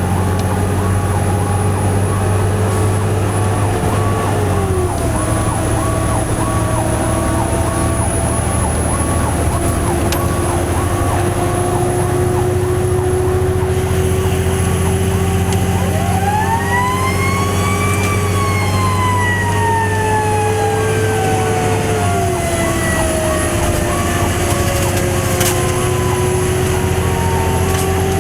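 Fire truck responding on an emergency call, heard from aboard: its engine drones steadily under an electronic siren cycling rapidly. About two-thirds of the way through, a mechanical siren winds up to a high wail and then slowly winds down.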